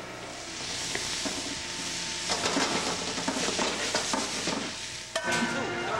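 Diced carrots and corn sizzling in a sauté pan while being stirred, with the scrape and clack of the utensil on the pan through the middle of the stretch. It cuts off abruptly shortly before the end.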